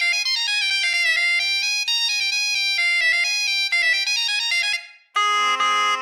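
Sampled Middle Eastern instrument from Native Instruments' Discovery Series Middle East library playing a solo melody of held notes, fading out about five seconds in. Just after, a different, bagpipe-like instrument comes in with a steady drone under its melody.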